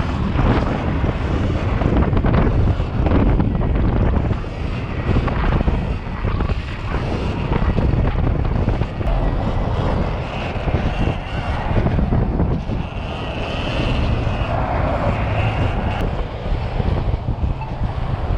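Wind buffeting the microphone while riding an electric dirt bike. A faint high whine comes and goes twice in the second half.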